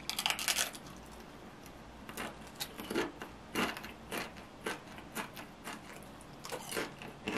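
Crunching of a Paqui One Chip Challenge tortilla chip as it is bitten and chewed, close to the microphone. The crisp crunches come about two a second and are loudest at the first bite.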